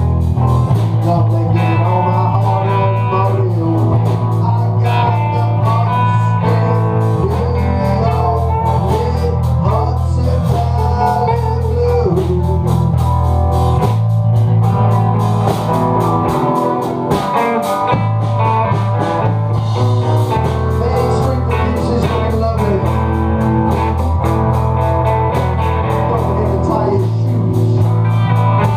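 Blues jam: guitar playing over a loud, boomy bass line that moves to a new note every few seconds, with a dip in the bass near the middle.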